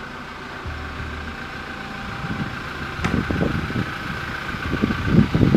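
Toyota Hilux pickup driving slowly up and pulling in to stop, its engine rumble growing louder as it nears, with a sharp click about three seconds in.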